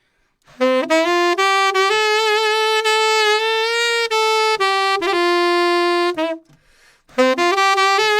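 Saxophone playing a slow ballad phrase, scooping up into the first note and putting a strong vibrato on the held notes. It breaks off about six seconds in, then starts the phrase again with the same upward scoop near the end.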